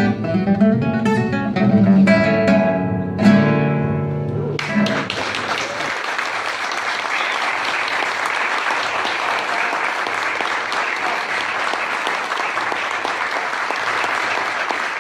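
Acoustic guitar playing the last bars of a piece, ending on a final chord about three seconds in that rings for a moment; then an audience applauding steadily.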